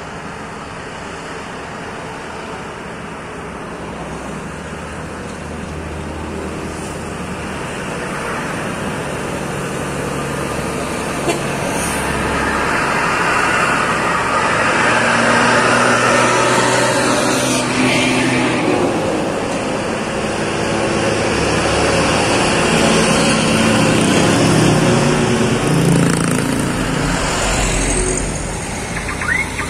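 Heavy diesel trucks approaching and passing close by, one of them hauling a crane. Their engines grow steadily louder for the first half, then stay loud as the convoy goes past, with a falling whoosh as one truck passes about two-thirds of the way through.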